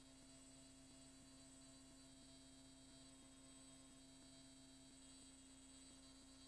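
Near silence: a faint steady hum with one constant low tone and no other events.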